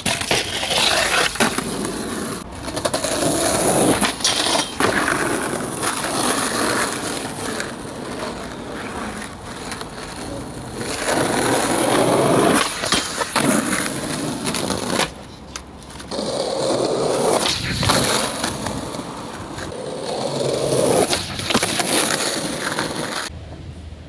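Skateboard wheels rolling on street pavement and concrete, broken by many sharp clacks and scrapes from tail pops, landings and ledge grinds. The sound drops out abruptly a few times between short clips.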